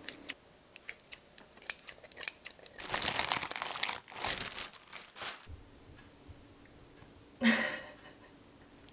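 Kitchen scissors snipping raw food in a ceramic bowl, a few quiet clicks, then a plastic zip bag crinkling for about a second as yogurt is squeezed out of it. A brief louder noise comes near the end.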